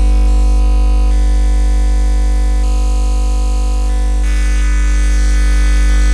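Synthesized oscilloscope-music signal from OsciStudio and Max MSP: a loud, steady low drone with a stack of steady overtones, its upper tones shifting in steps a few times.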